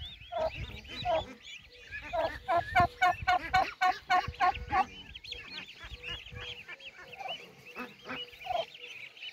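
A flock of young domestic ducks peeping continuously as they walk. From about two and a half to five seconds in there is a run of louder calls, about four a second.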